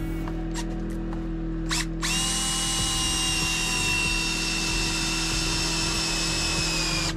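Cordless drill driving screws into wooden floor planks: a few short trigger bursts, then one long steady run of about five seconds whose whine sinks slightly in pitch.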